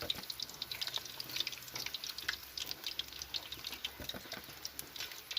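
Pork leg (crispy pata) deep-frying in hot oil, a steady crackle of many small, irregular sharp pops.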